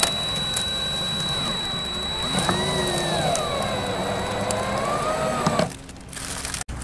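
DeWalt 20V cordless drill driving a wood screw through bamboo half-round trim into the ceiling. Its motor whine rises and falls in pitch as the speed changes, then stops about a second before the end.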